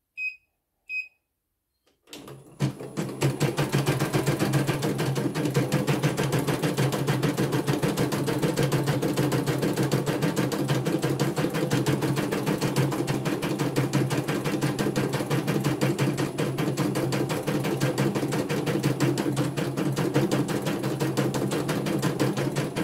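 Two short beeps from the control panel of a CNY E900 computerized embroidery machine, then about two seconds in it starts stitching at its faster speed setting: a rapid, even chatter of needle strokes that runs on steadily.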